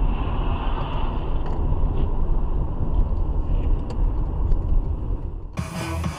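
Steady rumble of a moving car heard from inside the cabin: engine and tyre noise while driving on a snowy road. It cuts off abruptly near the end, where music starts.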